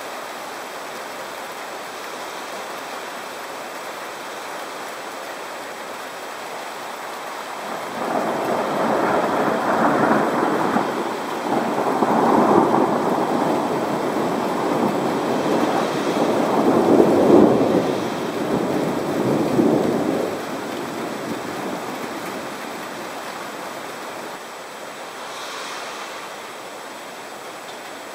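Steady rain hiss with a long roll of thunder that sets in suddenly about eight seconds in, rumbles in several swells for around twelve seconds, and fades back to the rain.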